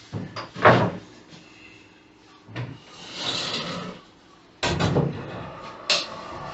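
Wooden knocks and thuds of a door being handled and fitted, with a short rasping noise in the middle and a burst of clattering near the end.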